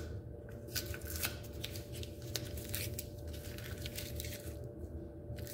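Green painter's tape being peeled off a metal dowel pin on a painted table leg: a crackly rustle of many small clicks.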